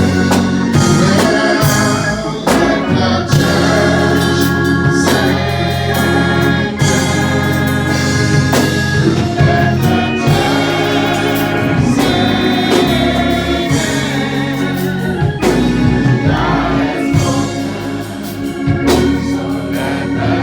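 Live gospel music in church: a choir singing over a band with bass and drums.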